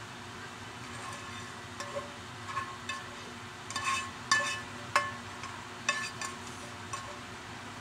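A utensil scraping and tapping inside a frying pan, a string of light metallic clinks that each ring briefly, as the garlic and chili in oil are scraped out onto the spaghetti. The loudest clinks come a little past halfway.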